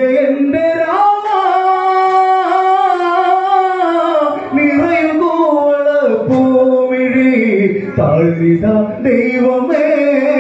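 Male voice singing an Onamkali folk song in Malayalam, holding long, gently wavering notes that move from pitch to pitch with short breaks between phrases. A few sharp clicks sound over the singing.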